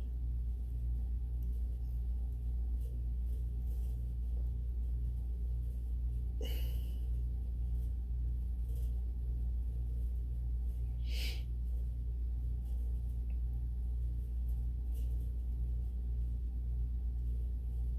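Steady low hum of background noise, with two short soft rustling noises, about six and eleven seconds in.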